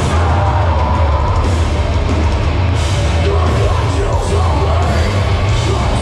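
Hardcore band playing live and loud, with heavy distorted guitars, bass and drums and a vocalist yelling into the microphone over it, heard from inside the crowd.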